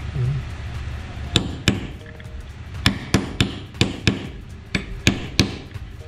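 Light hammer taps on a socket, driving a new ball bearing into a car radiator fan motor's housing. About ten sharp metallic taps in loose groups begin about a second and a half in.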